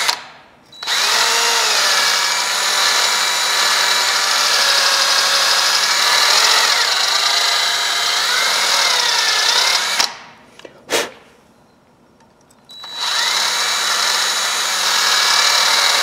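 Power drill spinning a twisted wire brush inside the rusty jaws of a T-handle tap wrench, the wire scrubbing rust out of the metal, its pitch wavering as the load changes. It runs, stops about ten seconds in, and starts again a few seconds later.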